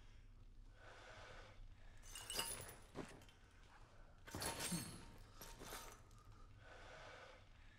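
Faint tinkling and crunching of scattered broken glass shards, in a few short bursts about two seconds in and again about four and a half to six seconds in.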